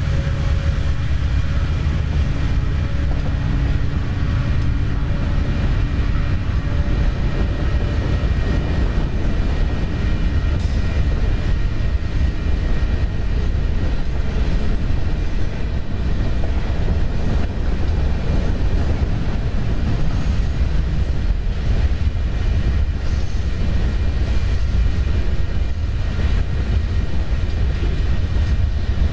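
Train passing by: a steady, heavy low rumble of the rail cars rolling past. Faint steady tones fade out over the first several seconds.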